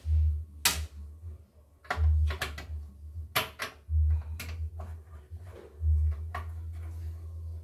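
Irregular sharp clicks and knocks from a screwdriver and small parts being handled as an embroidery machine is unscrewed and taken apart, with low bumping thuds in between.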